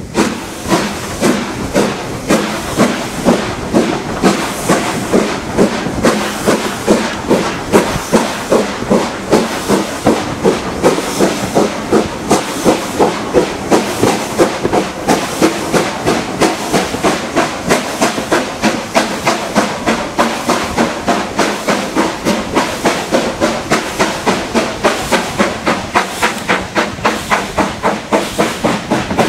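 Steam locomotive working hard, its exhaust beats chuffing in an even rhythm of a few a second, heard from an open window of a carriage it is hauling, with the rumble of the train's wheels on the rails underneath.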